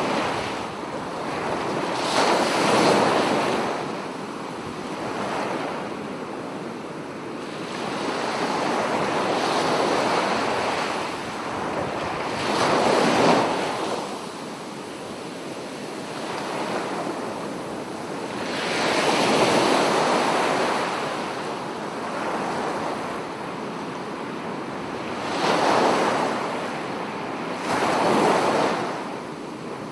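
Ocean surf washing onto a shore: a continuous rush of water that swells into louder waves about every three to seven seconds and then recedes.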